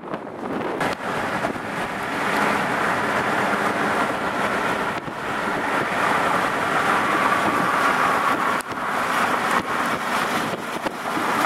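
Car being driven, with a steady rush of wind and road noise.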